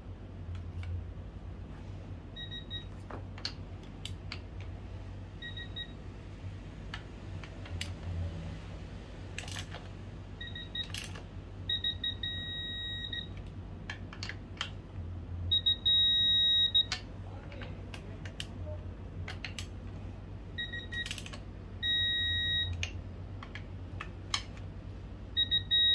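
Electronic beeping: groups of short high beeps and a few longer held beeps, the loudest a held beep a little past halfway. Scattered light clicks and taps are heard between them.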